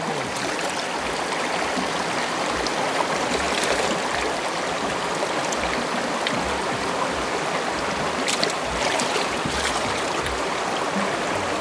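Shallow river rushing steadily over rocks, with a few faint clicks now and then.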